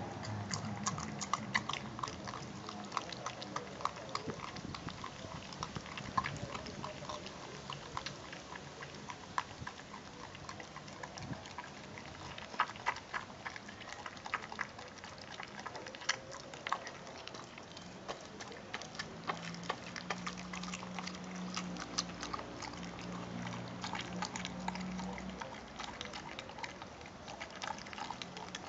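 Dog chewing and gnawing a raw turkey drumstick, with many sharp crunches and cracks of bone and wet biting sounds. A low steady hum joins in for several seconds past the middle.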